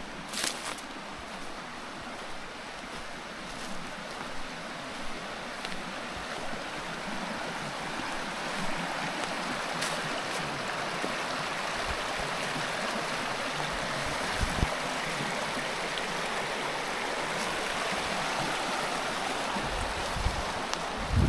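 Rushing water of a mountain stream, an even rush that grows louder over the first half and then holds steady, with a few short knocks.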